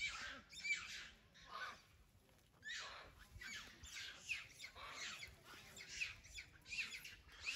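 A monkey's shrill distress screams in quick succession, about two a second, with a short lull about two seconds in: the cries of prey being caught and eaten alive by Komodo dragons.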